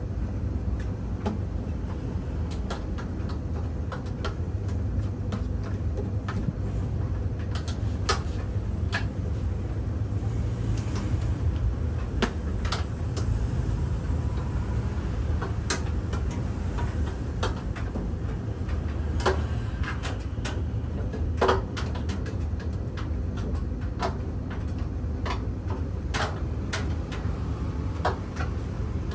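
Scattered clicks, clinks and knocks of metal parts and wiring being handled inside the opened base of a clothes dryer, over a steady low rumble.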